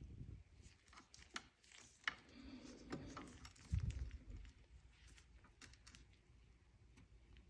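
Faint, scattered clicks and light taps of metal tweezers and a soldering iron tip working against a flashlight's LED board while desoldering the emitter, with a soft thump about halfway through.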